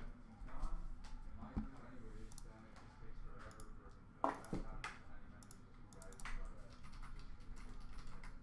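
Scattered clicks and light knocks of small items being handled, with a sharper pair of clicks a little past four seconds in.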